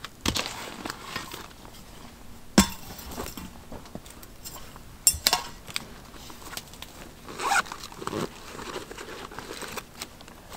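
Handling noises: several short rasping scrapes, and one sharp knock or clink about two and a half seconds in, the loudest sound.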